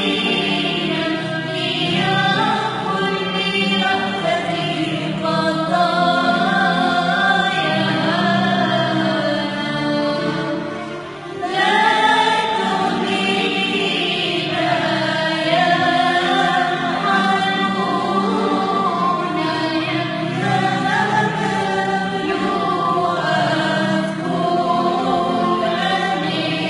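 A hymn to the Virgin Mary sung by a young girl, a continuous melodic line with a choir-like fullness. The singing dips briefly about ten seconds in, then returns at full strength.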